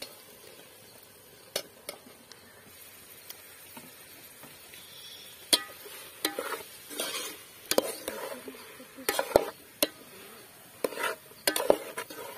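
A metal spoon stirring chopped mushrooms into frying onion-tomato masala in an aluminium pot, with sharp clinks against the pot and scrapes in bursts, busiest in the second half, over a faint sizzle.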